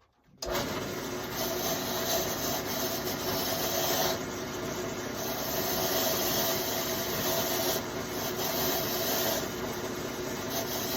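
A small electric machine starts abruptly about half a second in and runs steadily, a hum under a harsh hiss that grows and fades every second or two.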